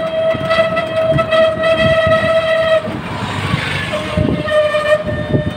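A three-wheeled rickshaw is riding along a road. It gives a steady high-pitched whine with overtones that drops out for about a second in the middle and then comes back, over rattling and bumping from the road.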